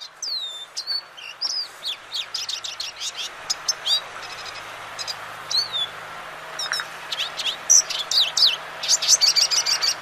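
Recorded song of a lesser goldfinch: a long jumble of high wheezes, trills and stutters, with the notes coming faster and thicker near the end. This species works mimicked notes of other birds into its song.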